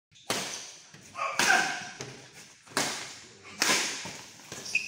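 Badminton rally: rackets striking the shuttlecock five times, about once a second, each hit ringing on briefly in a large sports hall.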